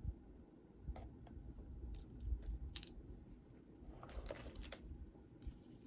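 Jewelry being handled: faint, scattered small clicks and brief light rattles of metal chain and beads.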